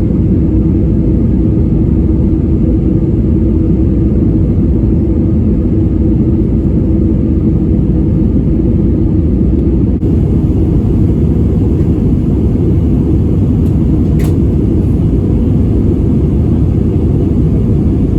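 Steady, loud low rumble of a vehicle in motion, with a steady hum running through it.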